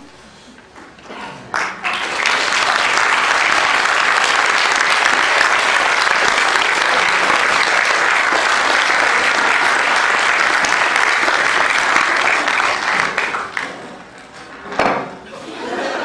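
Audience applauding: the clapping builds about two seconds in, holds steady, dies away near the end and briefly picks up again.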